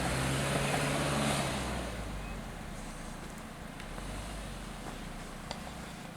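Off-road 4x4's engine running with a steady hum, loudest over the first two seconds and then dropping to a lower level.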